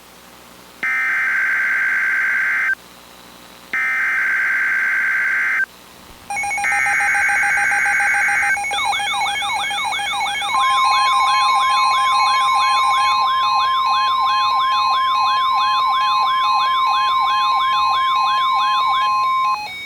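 Emergency Alert System broadcast: three short bursts of buzzy SAME digital header data, followed by a warbling alert tone that sweeps up and down about three times a second. About a second and a half later a steady single-pitch NOAA Weather Radio warning alarm tone joins it, and both stop together near the end. This is the start of the next weather alert.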